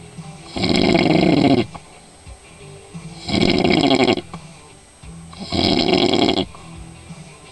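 A man snoring: three long snores, each about a second, coming every two and a half seconds or so.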